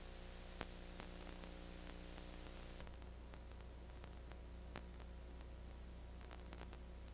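Steady hiss with a low hum and scattered faint clicks and pops, one a little stronger about half a second in: the background noise of an old film transfer.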